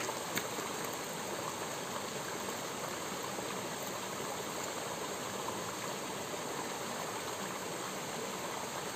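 Small rocky stream spilling over a low cascade into a shallow pool: a steady, even rush and splash of running water.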